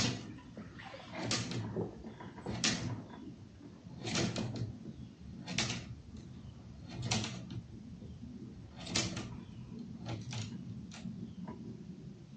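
Kayak paddle strokes: a short splash-and-knock about every second and a half, steady and even.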